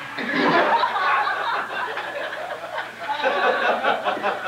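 A group of people laughing together at the punchline of a joke, a burst of mixed laughs and chuckles, loudest at the start.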